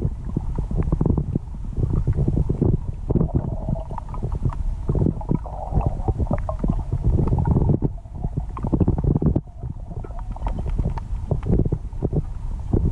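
Muffled underwater rumble of river water moving against a camera's waterproof housing, with frequent small knocks and clicks throughout.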